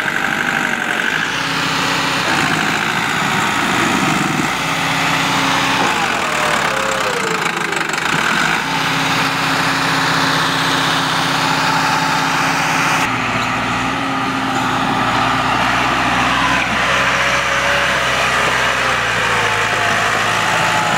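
Farm tractor's diesel engine running under load as it hauls a loaded trailer up a muddy slope, its pitch rising and falling a few times.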